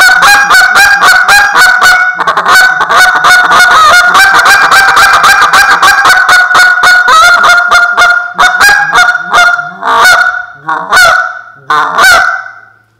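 Buck Gardner Canada Hammer polycarbonate short-reed goose call blown by hand, imitating Canada goose honks and clucks: a fast run of short notes, about five a second, for most of the time, then about six slower, separate honks near the end.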